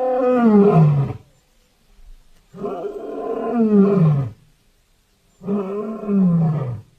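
Three long, deep monster roars, each falling in pitch, with short silent gaps between them: a layered creature roar made from animal and movie-monster recordings.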